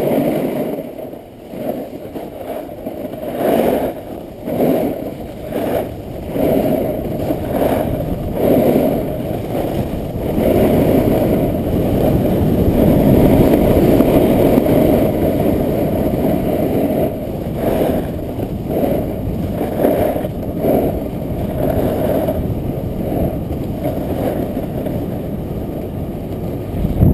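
Muffled rush of wind and a snowboard scraping and sliding over groomed snow during a fast run, heard through a body-mounted GoPro Hero2. The noise surges and fades with speed and turns, and is loudest midway.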